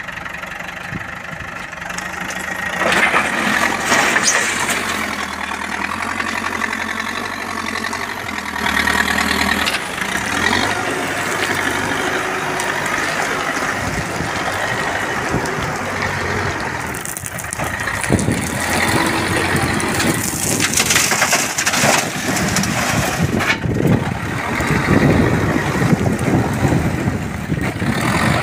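Backhoe loader's diesel engine working under load as its front bucket digs into a gravel heap and lifts it, with stones crunching and scraping against the steel bucket. It gets louder and grittier in spells, at about three seconds in and again in the second half.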